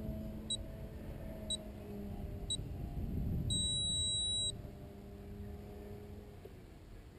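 Three short electronic beeps a second apart, then one long beep lasting about a second, over the faint steady drone of a radio-controlled aerobatic plane's motor in flight. The drone fades out near the end.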